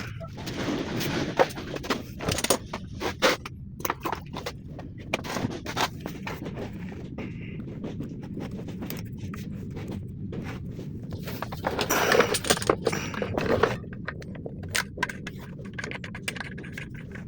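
Scraping with many irregular clicks and knocks of hard parts being handled, with stretches of denser noise about half a second in and again around twelve seconds in.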